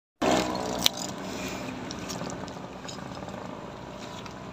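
Steady outdoor noise of wind and water, with a faint low motor hum in the first second and a single sharp click about a second in.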